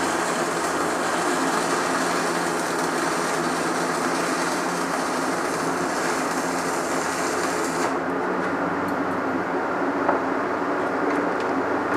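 Stick-welding arc from a 3/32 Lincoln Electric 6013 rod on a Tweco Fabricator 141i, a steady crackling sizzle as a bead is run. It stops about eight seconds in when the arc breaks, leaving a steady hum and a single light click.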